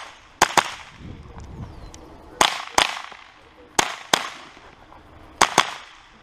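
Sig Sauer 522 SWAT semi-automatic .22 LR carbine firing four quick pairs of shots (double taps), with a second or two between pairs. Each shot is a sharp crack with a short echoing tail.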